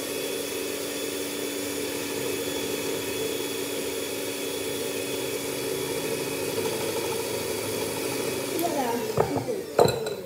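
Electric hand mixer running at a steady speed, its beaters whisking the cupcake mixture in a bowl, with a constant motor whine. It switches off near the end, followed by a few sharp knocks.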